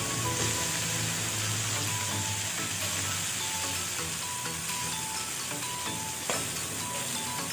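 Sliced tomato, onion, onion leaves and celery sizzling in oil in a nonstick frying pan while being stirred with a spatula, with soft background music over it. A single sharp knock about six seconds in.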